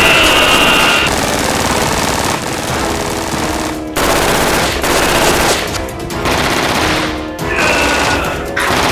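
Rapid automatic gunfire, dense and nearly continuous, over background music.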